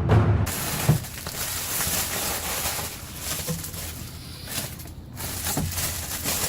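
Background music cuts off about half a second in. After that comes a steady rustling and crinkling of packaging being handled, with scattered small clicks and crackles.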